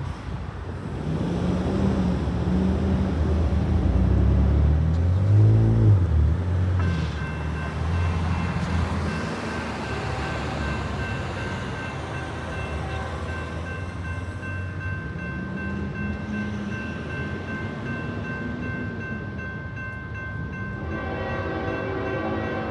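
Road traffic passing for the first several seconds. Then, about 7 seconds in, the crossing's NEG electronic bells start ringing, a steady high-pitched ring that keeps going as the gates come down. Near the end, a train horn starts to sound.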